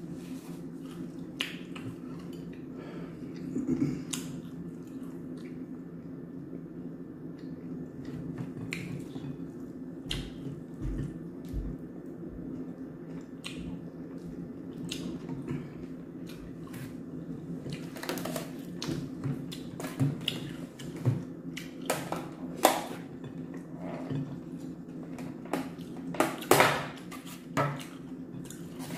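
A person eating with her fingers close to the microphone: wet chewing and mouth smacks with scattered sharp clicks, growing busier in the last ten seconds, over a steady low hum.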